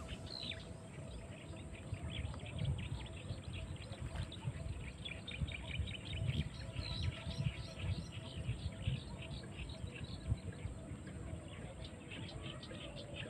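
Birds chirping all around in many short, quick calls, over a low uneven rumble.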